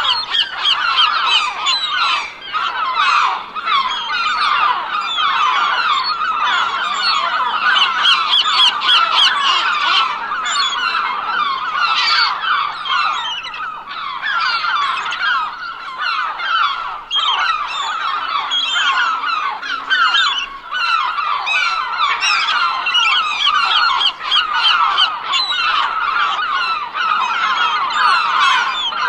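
A large flock of gulls calling all at once, a dense, continuous chorus of many overlapping squawks and cries.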